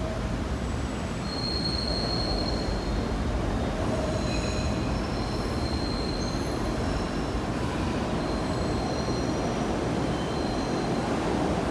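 SEPTA Broad Street Line subway train of Kawasaki B-IV cars approaching the platform: a steady rumble of steel wheels on rail that grows slowly louder, with thin high-pitched wheel squeals coming and going over it.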